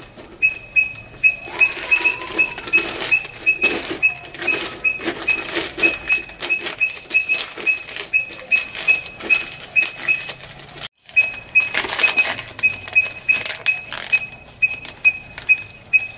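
Newspaper crackling and rustling as it is pressed down over the mouth of a clay pot and tied on with string. Over it, a short high pip repeats steadily about two or three times a second.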